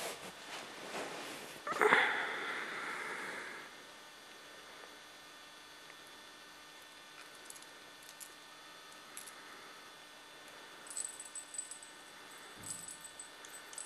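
A sudden scuffling noise about two seconds in, lasting a couple of seconds, as a Sphynx cat plays with its toys. Light metallic jingling and clinking comes near the end from the cat's dangling string toy and collar.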